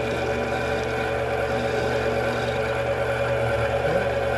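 Mini metal lathe running steadily, its motor giving an even hum made of several steady tones.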